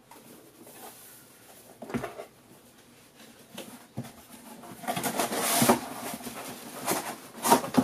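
Cardboard boxes being handled and rummaged: quiet rustling and scraping with a few light knocks, and a louder stretch of rustling about five seconds in.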